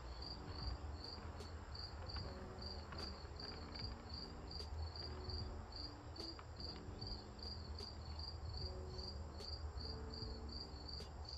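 Insects chirping outdoors: a regular high chirp repeating about three times a second over a steady, even higher trill, with a low steady rumble underneath.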